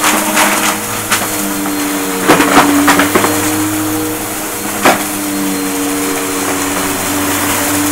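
Upright vacuum cleaner running with a steady motor hum, sucking up crunchy debris and plastic bottle caps from a carpet. The debris makes sharp clicks and rattles as it goes up: a quick cluster a little past two seconds in and one loud click near five seconds.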